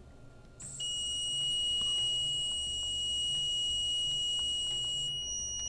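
A continuous electronic beep tone, one steady pitch, starting just under a second in and held for about five seconds before cutting off suddenly.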